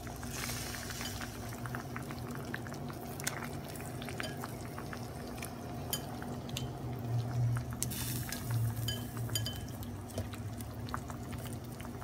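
Raw shrimp being added to a stainless steel pan of simmering sauce and moved about: soft wet sounds, light clinks against the pan and the sauce bubbling, over a steady low hum.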